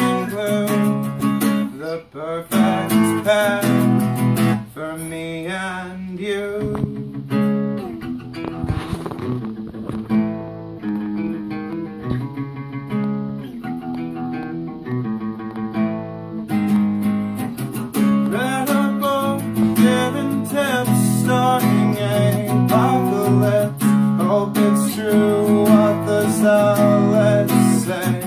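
A man singing while strumming a parlor-size acoustic guitar, with a softer stretch in the middle.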